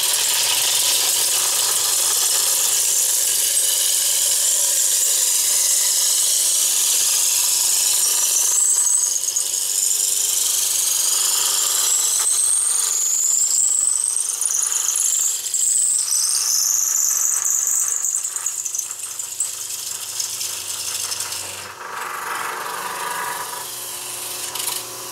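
A Veritas 3/8-inch dowel maker cutting a square wooden blank into a round dowel as the blank spins on a wood lathe. It makes a steady loud shaving hiss with high squeals that rise in pitch, and the cutting noise drops away near the end.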